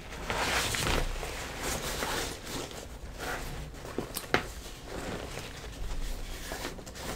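Ripstop nylon of a Matador Beast 28 packable backpack rustling as the pack and its shoulder straps are handled and turned over, with a couple of sharp clicks about four seconds in.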